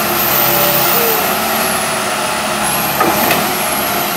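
Komatsu PC160 hydraulic excavator's diesel engine running steadily under work, with a thin high whine wavering in pitch. There is a brief knock about three seconds in.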